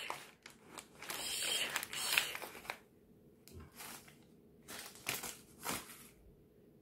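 A crumpled paper advertising flyer crinkling and rustling as a baby's hands grab and turn it: a dense run of crinkling for the first couple of seconds, then a few short rustles.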